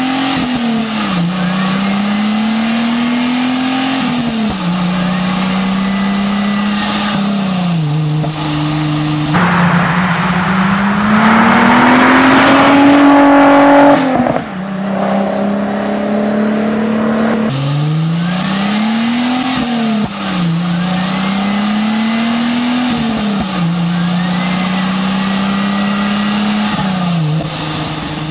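Renault Alpine GTA Turbo's turbocharged V6 with a custom exhaust accelerating hard through the gears, its pitch climbing and then dropping at each upshift, several times over. In the middle the car accelerates past and is loudest about two-thirds of the way through that stretch, then eases off to a steady run. Turbo spool can be heard under the revs.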